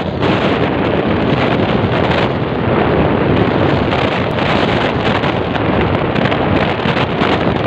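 Loud, steady rush of wind buffeting a microphone that is moving along a road, with a low rumble underneath.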